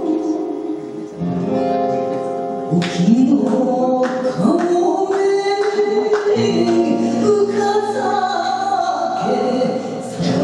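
Live enka-rock performance: a woman singing a drawn-out, wavering vocal line that comes in about three seconds in, backed by violin and band.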